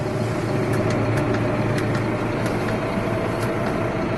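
Massey Ferguson 5713 tractor's diesel engine idling steadily, heard from inside the cab as a low, even hum, with a few faint ticks.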